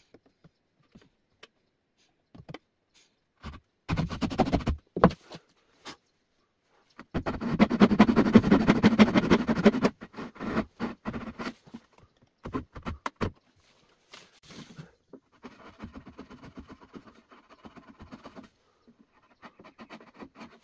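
Hand saw cutting a wooden board, in fast back-and-forth strokes: a short burst about four seconds in, then the loudest steady run of sawing for about three seconds in the middle, then a few shorter strokes. Fainter scratching follows in the second half, ending with a pencil marking the wood.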